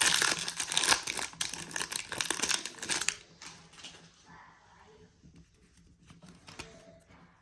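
Foil wrapper of a jumbo pack of baseball cards crinkling and tearing as it is opened, loud for about three seconds, then giving way to faint rustling.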